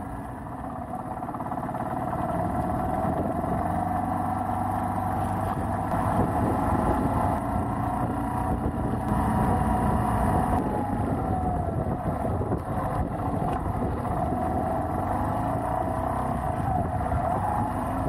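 Beta Alp trail motorcycle's single-cylinder four-stroke engine running while riding, its pitch rising and falling a little with the throttle, over a steady low rumble.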